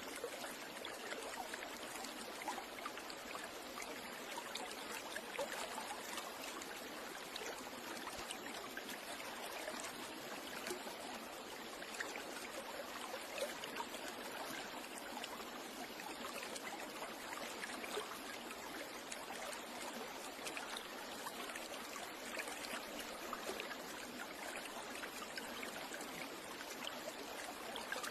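Steady rushing and trickling of running water, even throughout, with no calls or other events standing out.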